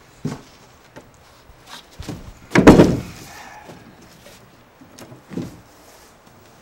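A heavy thump about two and a half seconds in, with lighter knocks and steps before and after it.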